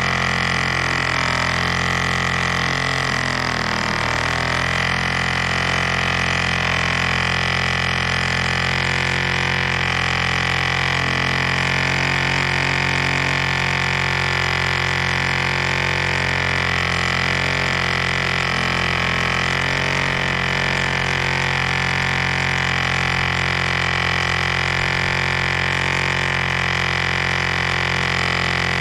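1947 Drone 4.85 cc model airplane diesel engine running steadily under load of a 14 x 6 propeller, a constant drone with a brief wobble in pitch about three to four seconds in.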